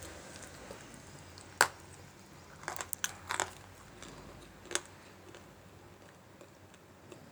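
Dry Multani mitti (Fuller's earth clay) crunching as it is bitten and chewed. A sharp crack about one and a half seconds in is the loudest, followed by a quick run of crunches around three seconds and another crunch near five seconds.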